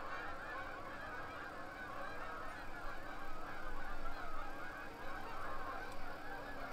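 A large flock of geese honking in flight, many calls overlapping into a continuous chorus.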